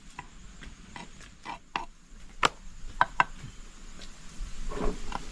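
Knife chopping raw fish on a wooden block: about nine sharp, irregular knocks of the blade striking the wood.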